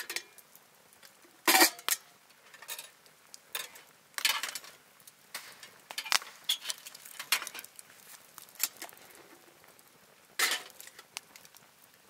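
Hard objects being handled and set down: scattered light clinks and knocks, with louder clatters about a second and a half in, around four seconds in, and about ten seconds in.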